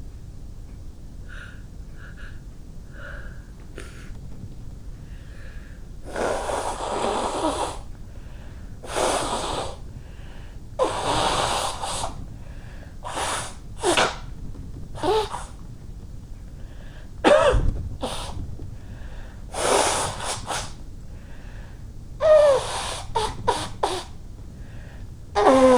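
A woman sneezing and blowing her nose again and again. Quiet breaths come first, then from about six seconds in a run of long nose blows and sharp sneezes, ending in a quick series of short bursts.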